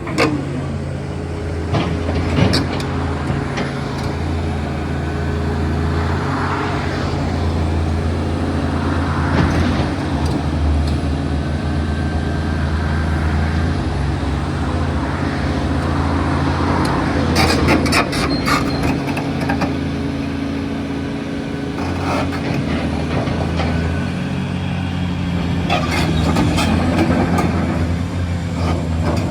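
Caterpillar 336DL excavator's diesel engine running steadily, with repeated swells as it works, and a few sharp metallic clanks, bunched in two clusters in the later part.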